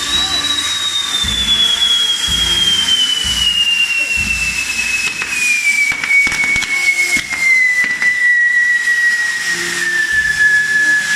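Castillo fireworks burning: one long whistle that slowly falls in pitch, over a steady hiss of burning pyrotechnics, with a few sharp cracks in the middle.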